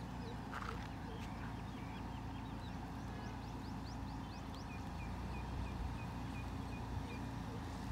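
A car engine running low and steady, with birds chirping over it: quick falling whistles and a run of short repeated chirps, about three a second, in the second half.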